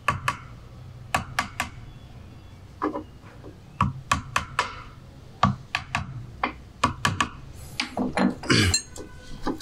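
Sharp taps of a hammer on a drift driving an oil seal into the bore of a Minsk motorcycle's aluminium engine cover. About a dozen short knocks come in small bursts, with a shuffle of handling noise near the end.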